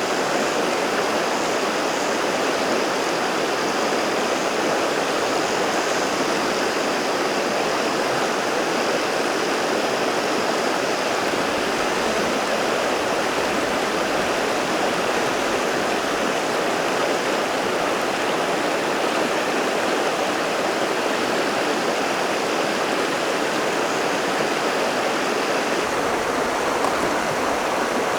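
River water rushing steadily, a constant even flow.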